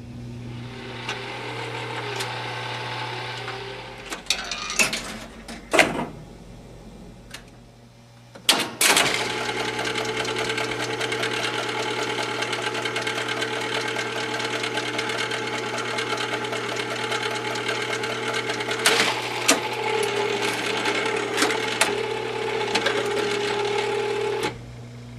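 Jukebox record-changing mechanism cycling between records: a few sharp clicks and clunks, then a steady mechanical whirring for about fifteen seconds over a low steady hum, stopping just before the next record plays.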